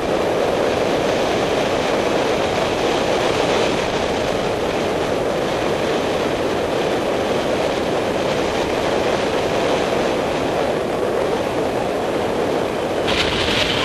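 Steady wind rush from the airflow over a paraglider harness camera's microphone in flight. It turns brighter and hissier near the end.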